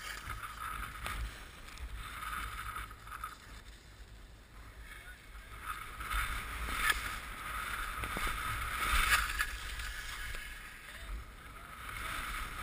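Skis hissing and scraping over packed snow on a downhill run, rising and falling with the turns and loudest a little past the middle. Wind rumbles on the helmet camera's microphone underneath.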